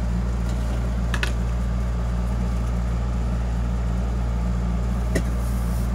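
Steady low electrical hum, with a couple of faint taps about a second in and near the end.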